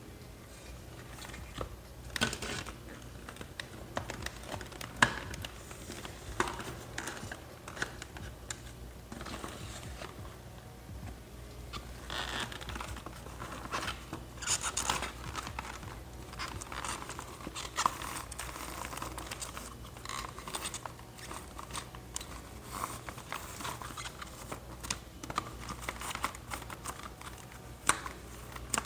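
Packaging rustling and crinkling as it is handled and pulled apart, with scattered clicks and small knocks, the sharpest about five seconds in, over a low steady hum.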